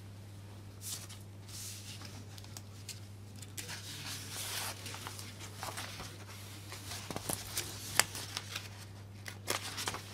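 Papers rustling and small handling clicks at a desk, getting busier after a few seconds, with one sharp click about 8 seconds in, over a steady low hum.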